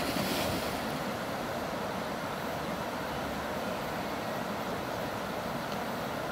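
River water flowing steadily: a constant, even rush with no breaks.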